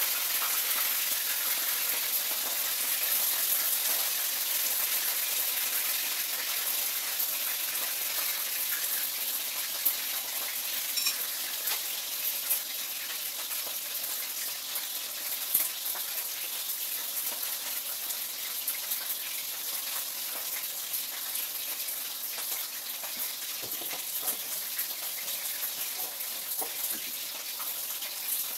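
Food frying in hot oil in a pan on a gas stove: a steady sizzling hiss with a few sharp pops.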